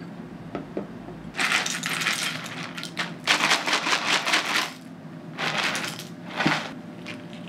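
Chocolate cereal squares poured from a plastic cereal dispenser into a ceramic bowl, a dense rattling clatter in four pours, the last one short.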